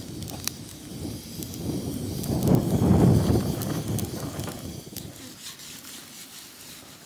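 Freshly lit twig kindling in a steel box grill, ticking and crackling faintly, with a low rush of air noise that swells around the middle and dies away.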